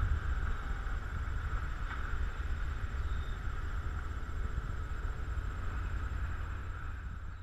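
Vintage Dodge Power Wagon truck driving at a steady pace: a continuous low engine and drivetrain rumble with a steady rushing noise above it.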